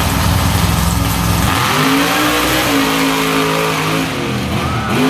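Monster truck engines racing at full throttle: after a heavy low rumble, the engine note rises sharply about a second and a half in, holds high, and drops away near the end, over the steady noise of the arena crowd.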